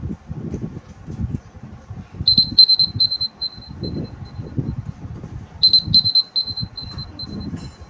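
Smartphone timer alarm going off as the one-minute timer runs out: a run of quick high beeps that fade away about two seconds in, then a second run near the end.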